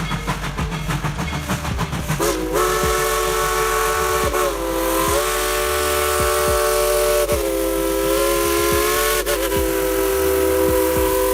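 Steam locomotive of a tourist train chuffing in fast, even beats, then sounding a long multi-note chime whistle from about two seconds in, held with a few short breaks.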